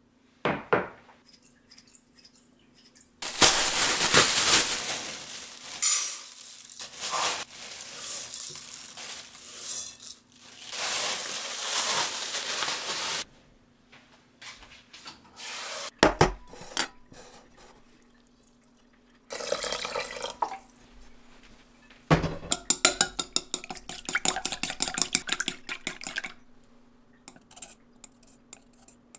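Wooden chopsticks beating eggs in a stainless steel bowl, fast clicking and scraping against the metal in long runs broken by pauses, with a single knock about halfway through.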